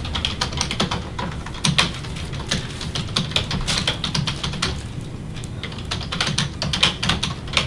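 Typing on a computer keyboard: a quick, uneven run of key clicks with short pauses.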